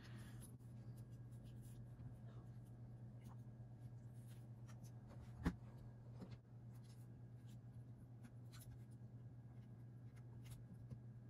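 Faint small clicks and light scratching of a tiny screw and a precision screwdriver being handled against plastic parts, with one sharper click about five and a half seconds in, over a steady low hum.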